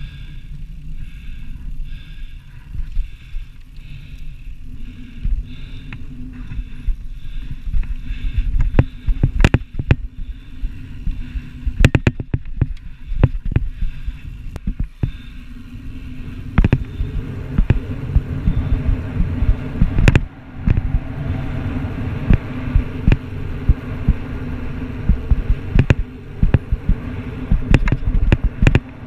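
Riding noise picked up by a bike-carried GoPro while rolling over sand dunes on a fat bike: a steady low rumble of tyres and rushing air, with scattered sharp knocks and rattles as the bike and camera jolt. The rumble grows heavier about halfway through.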